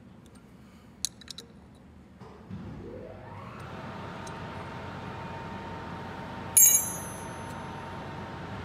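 A few sharp metallic clicks, then a motor in the background spins up, rising in pitch, and settles into a steady hum. A little past halfway a steel combination wrench is dropped on the concrete floor with a loud, ringing clang.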